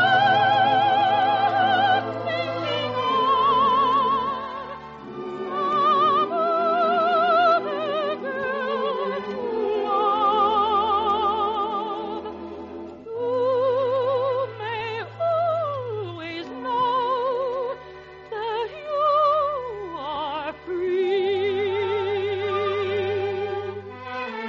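Operetta music: operatic singing with strong vibrato over an orchestra, the melody sliding down in pitch twice in the second half. It is an early-1950s radio broadcast recording with a narrow, muffled top end.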